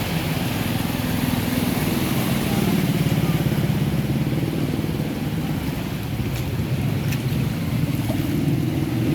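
A motor vehicle engine running steadily under a constant hiss.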